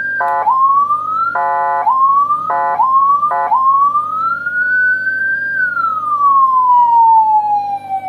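A Landun 60-watt, six-tone electronic siren sounds through its chrome horn speaker. A wailing tone climbs repeatedly, cut into four times by short horn-like blasts as the control buttons are pressed. After the last blast the wail rises slowly, sinks over about three seconds, and jumps up again near the end.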